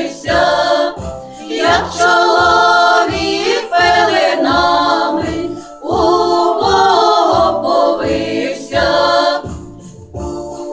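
A group of voices singing a Christmas carol together over a steady low beat.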